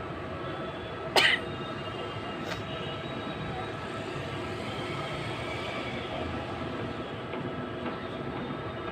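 A person's single short, sharp, cough-like burst of breath about a second in, over a steady background rumble with faint steady tones.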